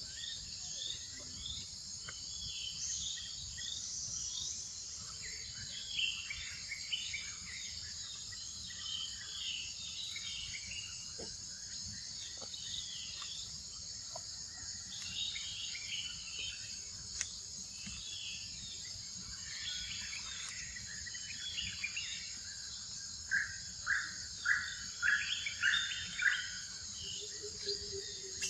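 Forest ambience: insects buzzing steadily at a high pitch, with birds chirping now and then. Near the end, a run of about six short, sharp calls repeated at an even pace stands out as the loudest sound.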